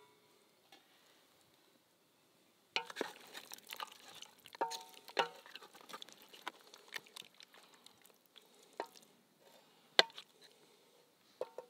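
Wooden ladle stirring and scooping stew in an enamel pot and tipping it onto an enamel plate. It makes a run of knocks and scrapes against the enamel, some ringing briefly, starting about three seconds in, with a sharp knock about ten seconds in.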